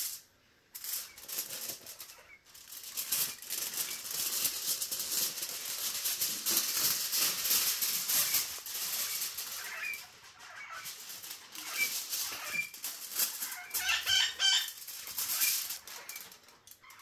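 Aluminium foil being crinkled and folded by hand into a pocket, a continuous crackling rustle.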